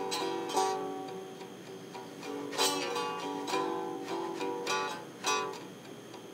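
Homemade wooden stick guitar played with a slide: slow plucked notes, roughly one a second, each ringing on and bending in pitch.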